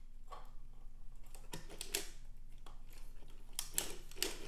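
Light metallic clicks at uneven intervals, growing more frequent near the end: metal split rings being hung on the latch needles of a circular sock machine's setup bonnet.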